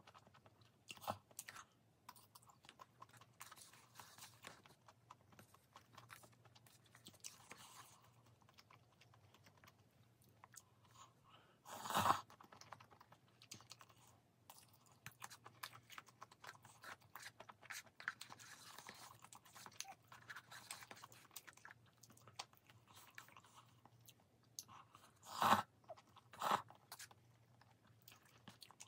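Close-up eating sounds of cup stir-fried noodles: soft chewing and small wet mouth clicks, with a few louder short noises about twelve seconds in and twice near the end.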